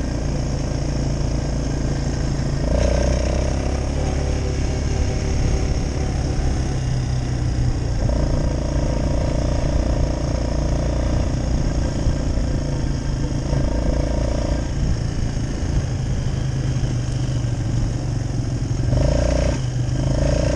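Quad bike (ATV) engine running while being ridden along a dirt track. The engine note steps up and down a few times.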